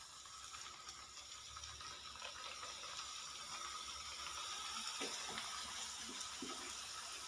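Papdi dough strips frying in a pan of hot oil: a faint steady sizzle that builds gradually, with a few small crackles about five seconds in.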